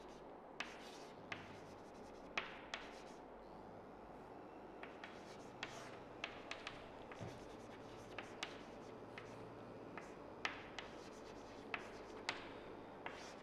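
Chalk writing on a chalkboard: scattered short taps and scrapes as the letters are drawn.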